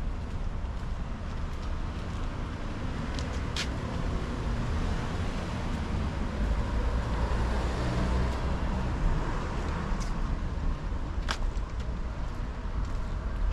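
A car passing on a street, its tyre and engine noise swelling to a peak about halfway through and fading again over a steady low rumble. Two short sharp clicks stand out, one early and one late.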